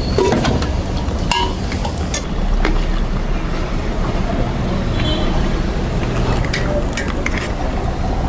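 Semolina malpua deep-frying in oil in a kadhai: a steady low rumble with hiss, broken by a few sharp clinks of a utensil against the pan.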